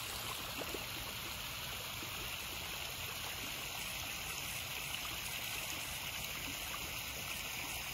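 Steady sound of running water from a backyard koi pond's water feature.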